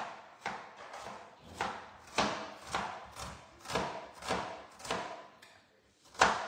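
Regular knocking strokes of a kitchen utensil in food preparation, about two a second, each ringing briefly. There is a short pause near the end, then one louder knock.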